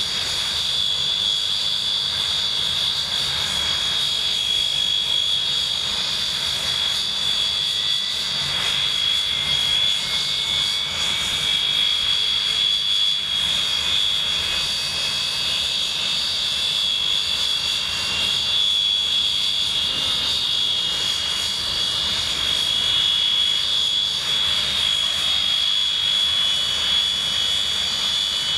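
English Electric Canberra's two Rolls-Royce Avon turbojets running at ground idle: a steady, high-pitched whine over a constant rush, with a fainter tone rising slightly about eight seconds in.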